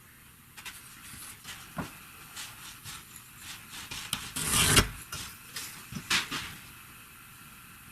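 Rubbing and scraping workshop handling noises with scattered clicks, and one louder rasping scrape lasting about half a second a little past halfway, then a shorter one soon after.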